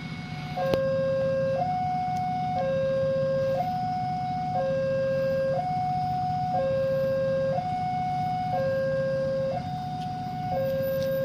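Railway level-crossing warning alarm sounding: an electronic two-tone signal that alternates between a higher and a lower note about once a second, warning that a train is approaching. A steady low hum runs underneath.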